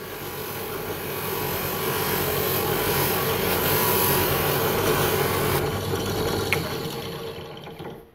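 Pillar drill spinning a cloth buffing wheel, with the steel head of a ball peen hammer pressed against it to polish it with emery compound: a steady motor hum under a hissing rub. It cuts off near the end.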